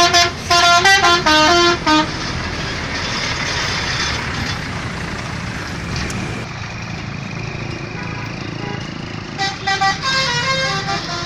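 Bus telolet horn, a set of tuned air horns, tooting a quick run of musical notes, then steady vehicle noise, then the horn playing another run of notes near the end.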